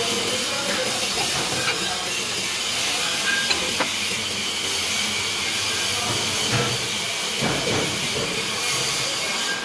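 Stick arc welding: the electrode's arc burning with a steady crackling hiss, with a few sharper pops.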